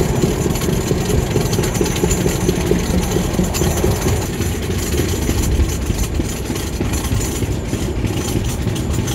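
Passenger train running at speed, heard from an open coach doorway: a steady, loud rumble and rattle of the coaches on the track.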